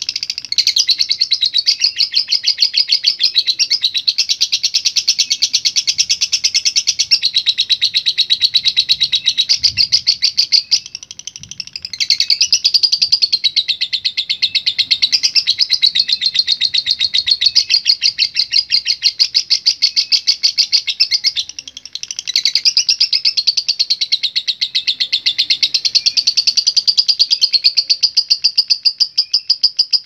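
Fischer's lovebird singing its long 'ngekek' chatter: a rapid, unbroken high-pitched trilling that keeps going with only two brief breaks, about a third and two-thirds of the way through.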